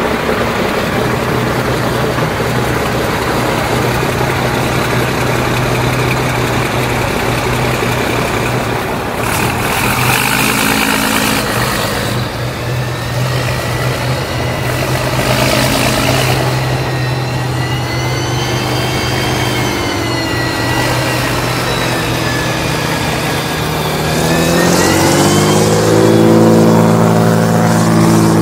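Tracked armoured vehicle's engine running steadily, with a high wavering whine over it from about halfway. In the last few seconds the engine revs up, rising in pitch and getting louder.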